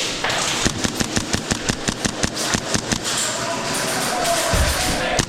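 Airsoft gun firing a rapid string of shots, about six a second for roughly two and a half seconds, over a steady hiss.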